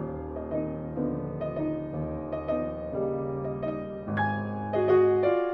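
Background piano music, with a new low note and a louder chord about four seconds in.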